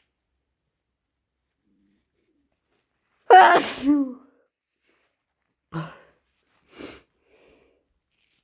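A person's deliberately induced wet sneeze, sudden and loud about three seconds in, ending on a voiced, falling 'choo'. Two shorter, quieter sounds follow about two and three seconds later.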